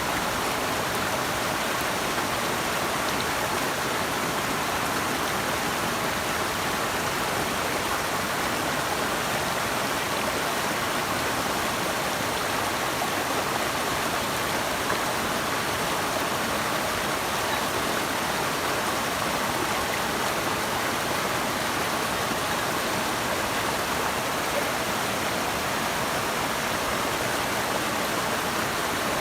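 Flowing water rushing steadily with an even, unbroken hiss.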